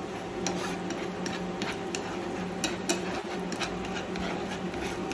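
Sauce simmering in a frying pan as it is stirred with wooden chopsticks: a steady sizzling hiss with scattered light ticks and clicks.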